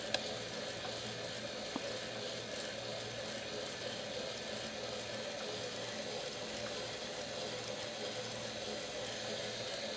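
Small electric motor turning a homemade gravity lever rotary: a steady hum with a low drone that swells and fades in an even rhythm as the shaft spins. Two faint clicks come in the first two seconds.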